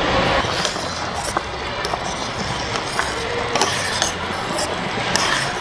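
A spoon stirring thick mushroom cream sauce simmering in a pan, with scattered light clinks and scrapes against the pan over a steady hiss.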